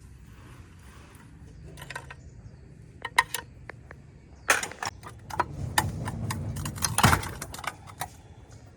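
Metal tools and small metal parts clinking and clattering. There are a few sharp clicks about three seconds in, then a busy stretch of knocks and rattles over the next few seconds.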